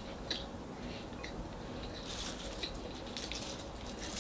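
Quiet eating by hand: soft chewing, with a few faint clicks and a brief light rustle as salad greens are handled on a plate.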